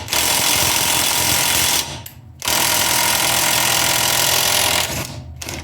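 Impact wrench hammering on the 28 mm CV axle hub nut in two runs of about two seconds each, with a short pause between. These are bumps of the impact to shock the seized nut loose.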